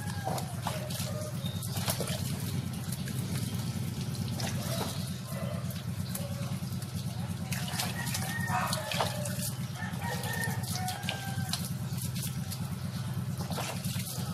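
Water splashing and dripping as a wet dog is rinsed and rubbed by hand, over a steady low hum. Chickens cluck and call a few times in the background, loudest about eight to nine seconds in.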